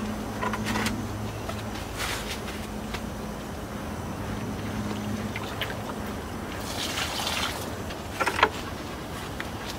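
Handling noises of a plastic bucket of water being carried through the garden, scattered rustles and knocks with a sharp knock near the end, over a low steady hum that fades out about halfway through.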